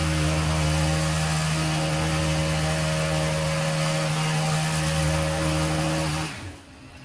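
Chainsaw engine running at a steady high throttle, its pitch holding constant, then dying away about six seconds in.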